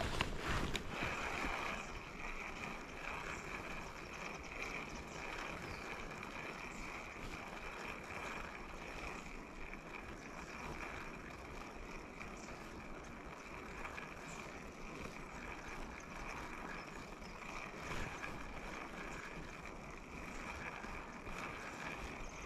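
Steady rush of flowing river water, with low wind buffeting on the microphone.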